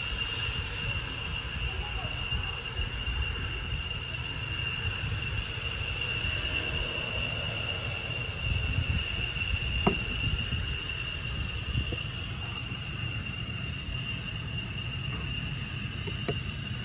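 A steady high-pitched whine holding two pitches over a low rumble, with one light click about ten seconds in.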